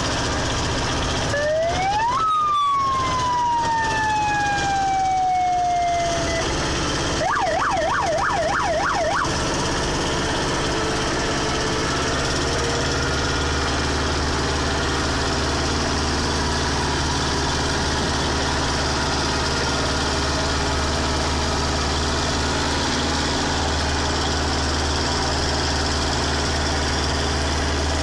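An electronic siren gives one whoop, rising quickly and then sliding slowly down in pitch over several seconds, followed by about two seconds of fast warbling. Under it, and alone for the rest, runs the steady drone of the engine of the tractor pulling the beach train.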